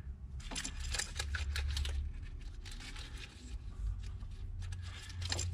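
Scattered soft clicks and rustles of plastic-sheathed wiring harness and rubber hoses being handled and pushed into position in an engine bay, over a low steady hum.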